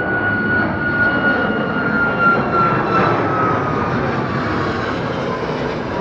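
Jet engines of a Boeing 747-8 freighter, its four GEnx turbofans, running loud and steady with a thin high whine that slowly falls in pitch and fades after about four seconds.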